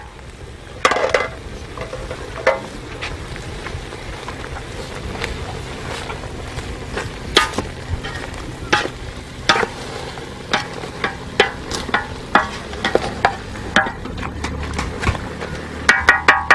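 A wooden spatula stirring food in a large aluminium pot, with irregular scrapes and knocks against the metal about once a second, over a soft frying sizzle.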